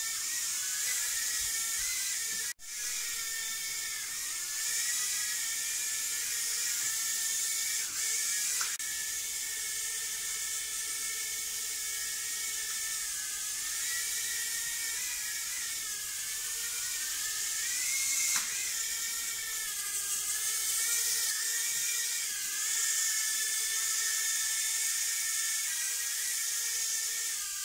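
Tiny FPV micro drone whining as it flies, its propellers and motors rising and falling in pitch with the throttle. The sound drops out sharply for a moment about two and a half seconds in.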